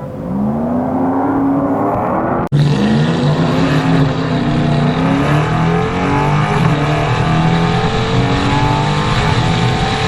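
V8 engines racing at full throttle, their pitch climbing steadily as the vehicles accelerate, with a brief sudden dropout about two and a half seconds in before the engines continue pulling.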